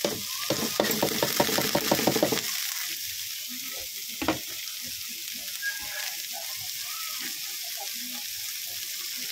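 Chopped green onion leaves, chili and ginger sizzling in a hot wok, a steady hiss. For the first two seconds a quick run of scraping strokes sounds over it, and there is a single knock about four seconds in.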